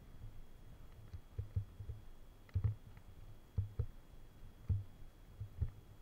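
Muffled low thumps, often in close pairs, about once a second, over a faint steady high whine: knocks carried through the moving camera itself, such as handling or footfalls, with little outside sound coming through.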